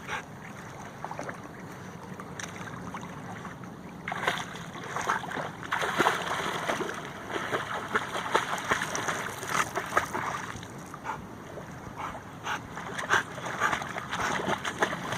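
Water splashing and sloshing in irregular bursts, busier from about four seconds in.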